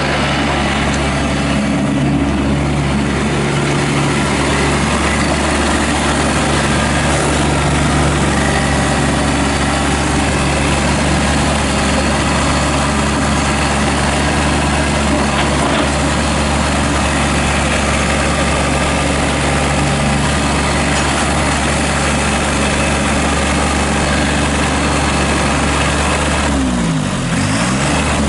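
Kubota B2301 compact tractor's three-cylinder diesel engine running steadily. Near the end its tone sweeps up and down.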